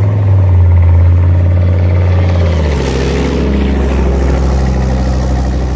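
Heavy tracked armoured vehicle passing close: a deep engine note that drops lower about two and a half seconds in, with a rush of track and mud noise as it goes by.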